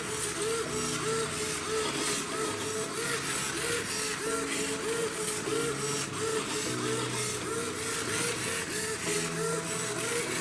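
Small electric motor in a homemade cardboard massager whirring in a repeating pulse about twice a second, over background music.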